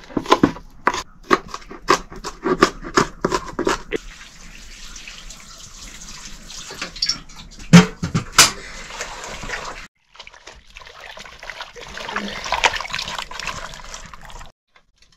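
Food being chopped with a knife on a board, about three strokes a second, then a steady watery hiss with two sharp knocks in the middle.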